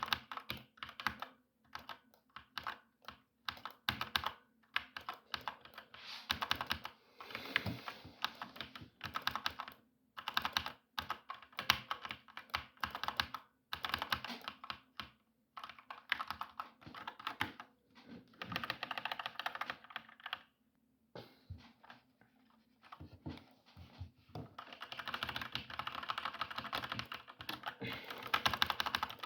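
Typing on a keyboard: runs of fast keystroke clicks in bursts, separated by short pauses, with a longer quiet gap about three-quarters of the way through.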